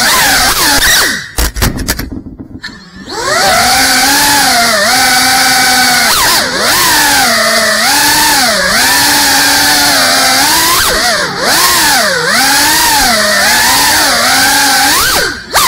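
GEPRC Cinelog 35 cinewhoop FPV drone's brushless motors and ducted propellers whining, the pitch rising and falling constantly with the throttle. About a second in the throttle is cut and the whine falls away for around two seconds before climbing back, with another short drop near the end.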